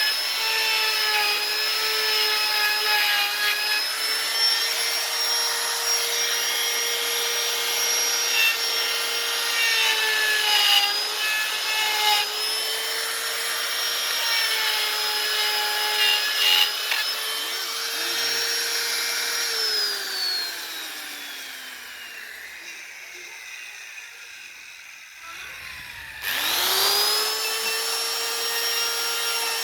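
Electric power tool carving wood: a steady motor whine with gritty scraping over it. About twenty seconds in the tool is switched off and winds down in pitch; a few seconds later it restarts and quickly spins back up to speed.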